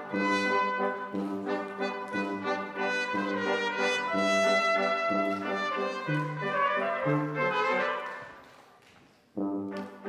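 Brass quintet (trumpets, horn, trombone and tuba) playing held chords, with deep low notes under them. The sound dies away about eight seconds in, and the brass comes back in with a new chord about a second later.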